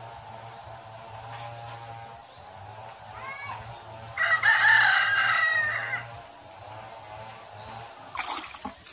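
A rooster crowing once, a long call of just under two seconds about four seconds in. Near the end there is a brief splash of hands in a bucket of water.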